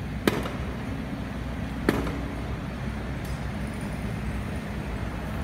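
Steady low drone of an idling diesel engine, the Kubota mini excavator, mixed with street traffic. Two sharp knocks cut through it, one near the start and one about two seconds in.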